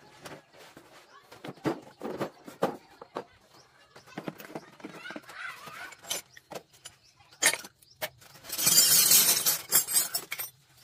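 Metal hand tools tipped out of a woven bamboo basket onto a tarp: a dense clatter and clinking of wrenches, sockets and pipes lasting about two seconds near the end. Before it come scattered knocks and rustles of the tarp and tools being handled.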